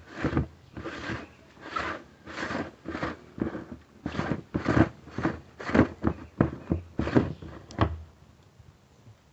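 Black plastic screw-on lid of a 250-litre plastic drum being twisted off by hand in short turns: a run of scraping strokes, about two a second, that stops about eight seconds in.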